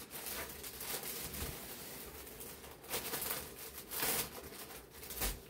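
Silk saree fabric rustling and swishing as it is handled and spread out, with louder swishes about three, four and five seconds in.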